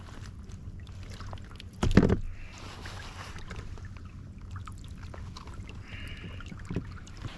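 Handling noises on a kayak: small clicks and rustling over a steady low rumble, with one loud knock about two seconds in.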